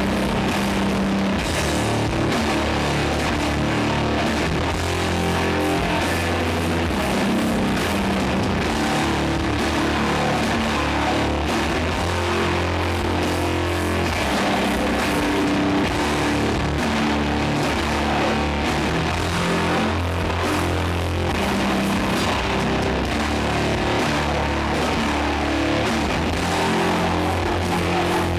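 Doom metal band playing live: guitars, bass and drums in long, held low notes, dense and steady throughout.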